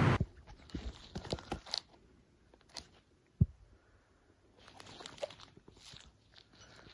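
Close-up handling of a perfume box and its packaging: a run of small clicks and taps, a single low thump about three and a half seconds in, then soft rustling.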